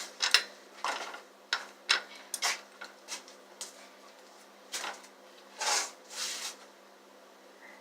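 A metal wrench clanking and clicking irregularly against a rusted nut on a bicycle as it is worked to loosen it, followed by a few longer scraping or rasping noises.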